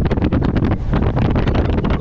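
Wind buffeting a GoPro camera's microphone on a fast road-bike descent: a loud, rough rush of air with rapid, irregular buffets.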